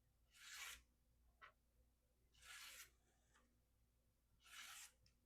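Spyderco Endura 4's VG-10 blade slicing through paper: three faint swishing cuts about two seconds apart. The mirror-polished edge shows a slight catch from light blunting but still cuts cleanly without tearing the paper.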